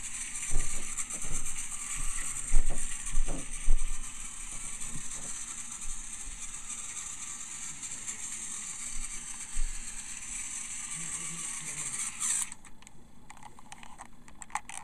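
Battery-powered TrackMaster Diesel 10 toy train running on plastic track: a steady motor-and-gear whir with scattered clicks in the first few seconds, heard through a device speaker. The whir drops away about twelve seconds in.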